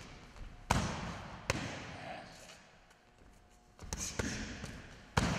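Strikes landing on a padded strike shield held by a training partner: sharp smacks that ring on in the hall, one under a second in, another at about a second and a half, a quick flurry of hits around four seconds, and one more near the end.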